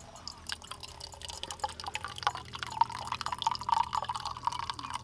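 Water poured from a stainless steel kettle into a stainless steel camping mug: trickles and splashes at first, then a steady pour from about two seconds in as the mug fills.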